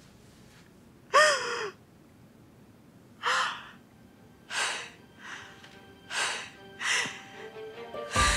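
A woman sobbing: a wailing sob with a falling pitch about a second in, then a string of gasping, breathy sobs about once a second. Soft music tones creep in near the end and swell at the close.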